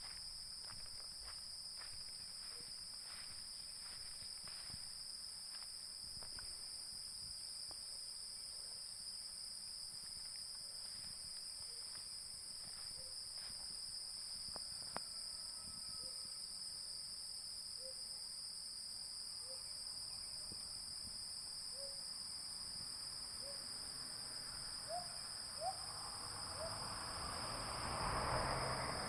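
A repeated short hooting call, one note every second or two, that rises in pitch and speeds up toward the end, over a steady high-pitched chorus of night insects such as crickets. A louder rustling noise comes just before the end.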